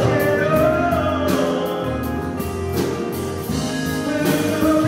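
Live rock band playing: a man singing a melody over strummed acoustic guitar, electric guitar, bass, keyboard and drum kit with cymbal strokes.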